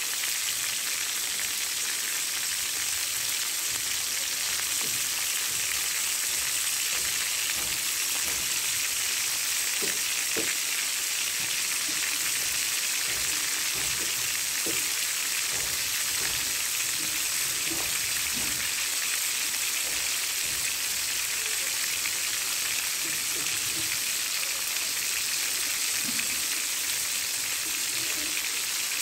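Turmeric-coated chicken pieces frying in hot oil in a wide metal wok: a steady sizzle with occasional small pops.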